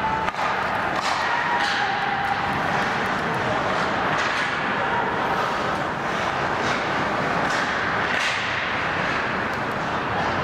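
Ice hockey game on the rink: skate blades scraping and carving on the ice in quick irregular strokes over a steady arena din.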